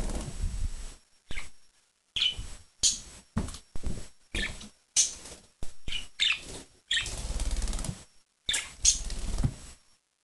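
Pet budgies and a cockatiel giving many short chirps that sweep down in pitch, with two longer rustling flurries of wings and feathers being shaken out as the wet birds dry off, at the start and about seven seconds in.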